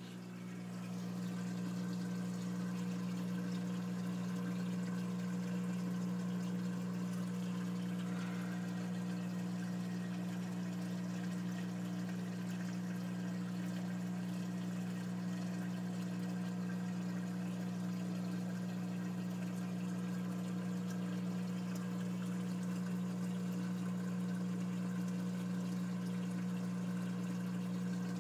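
Reef aquarium sump and plumbing: a steady electric pump hum with water running through the drain pipes, louder from about a second in.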